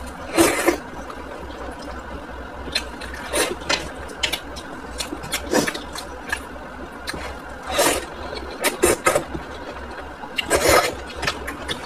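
A person slurping and chewing hot and sour noodles in soup, with wet mouth sounds. Several slurps come at irregular intervals, the loudest about half a second in and near the end, over a steady low hum.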